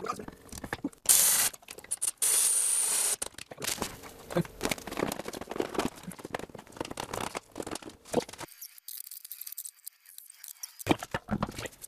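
Hands-on workshop noise: irregular clicks, scrapes and rattles as a brake caliper and a plastic front wheel-arch liner are handled and fitted, with a steady hiss lasting about a second a couple of seconds in.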